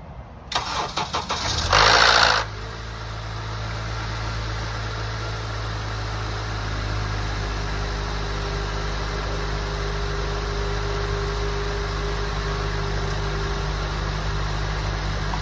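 2012 Acura TSX four-cylinder engine cranking briefly on the starter, catching at about 2 s with a short rev flare, then settling into a steady idle. The engine is running on freshly fitted coil packs and spark plugs, which cure its misfire.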